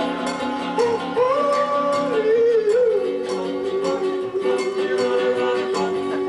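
A song with a steady beat and a sung melody. About halfway through, the voice settles on a long held note.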